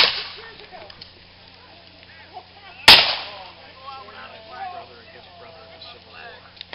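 Black-powder blank gunshots from reenactors' firearms: a sharp shot at the very start, another about three seconds in and a third at the very end, each with a short ringing decay. Faint voices are heard between the shots.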